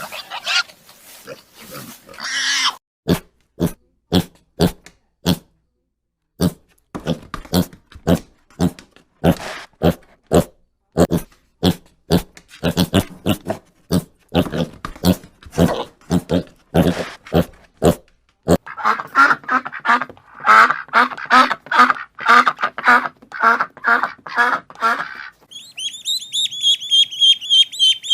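Domestic pig grunting in many short, separate grunts. About two-thirds of the way through it gives way to a faster run of rhythmic animal calls, and near the end to high-pitched, rapid bird calls.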